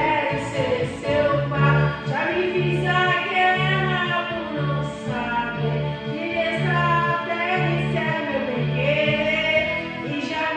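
A woman singing into a microphone over a karaoke backing track with a steady bass beat.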